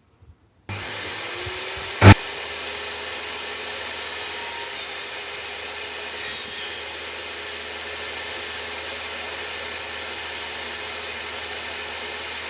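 Electric power saw cutting a notch into a wooden stringer, the blade set to the notch depth, with a steady running noise throughout. A single loud sharp knock comes about two seconds in.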